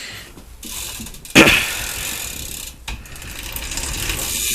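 BMX rear hub ratchet clicking rapidly as the wheel spins freely. It starts suddenly about a second and a half in and breaks off briefly just before the three-second mark.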